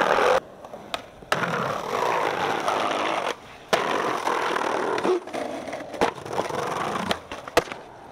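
Skateboard grinding and sliding along concrete ledges in long scraping runs of a second or two each, broken by sharp clacks of the board popping and landing.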